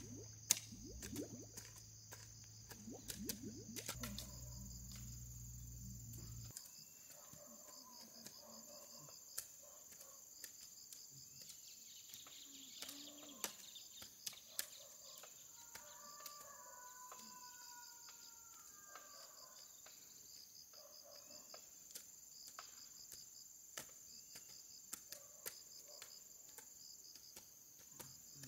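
Insects trilling steadily in a rural background, with scattered small clicks and taps. A low hum stops about six seconds in, and a few bird calls come near the middle.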